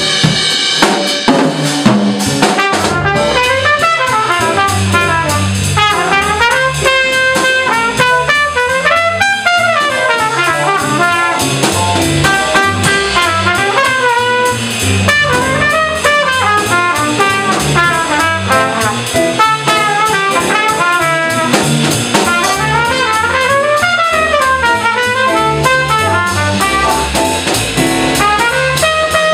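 Small jazz combo playing in a swing feel: a trumpet solos over upright bass and a drum kit with cymbals.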